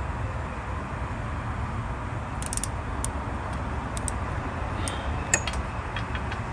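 Ratchet with a long handle and socket clicking in short, scattered runs as it works loose the 14 mm wheel-hub bolts on the rear knuckle, over a steady low background hum.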